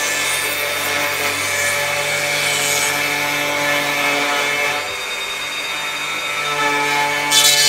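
Electric hand planer running at speed and shaving wood: a steady motor whine over cutting noise. It eases off slightly about five seconds in, and a short burst of hiss comes near the end.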